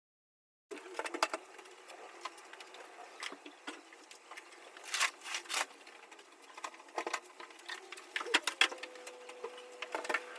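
A run of irregular sharp clicks and knocks, with a faint steady hum that comes in near the end.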